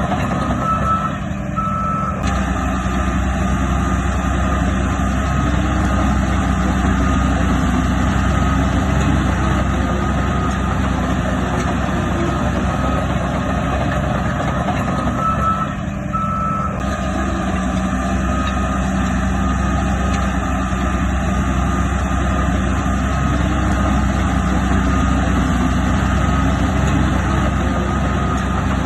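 Reversing alarm beeping steadily and repeatedly over the steady drone of a heavy diesel earthmoving machine's engine.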